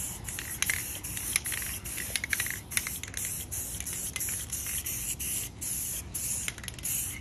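Aerosol spray-paint can hissing in a string of short bursts, each a second or less, with brief gaps between them.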